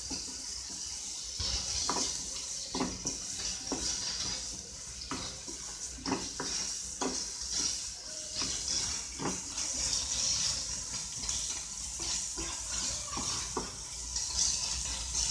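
Wooden spatula stirring and scraping baby potatoes through thick masala in a frying pan, with irregular knocks against the pan. Under it, a steady sizzle of the masala frying in oil.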